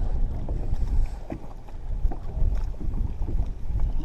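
Strong wind buffeting the microphone: a heavy, gusty low rumble that rises and falls.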